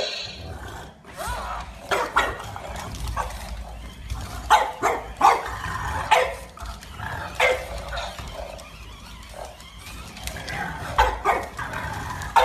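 French bulldogs barking, a string of short barks, several of them loud.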